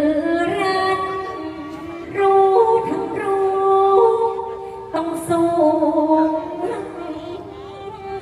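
A woman singing Thai sepha verse unaccompanied, in long drawn-out notes that bend and waver between pitches, with new phrases starting about two and five seconds in.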